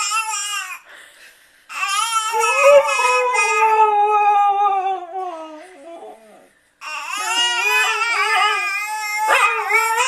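Pet dog howling in long, wavering calls that slowly fall in pitch, two long howls with a short break between, imitating a crying baby.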